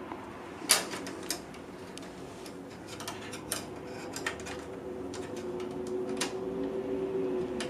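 Small metal clicks and taps as a sheet-metal PCI slot cover is fitted back into a Dell PowerEdge R720's rear expansion slots; the loudest click comes about a second in, with scattered lighter ones after. A faint steady hum runs underneath.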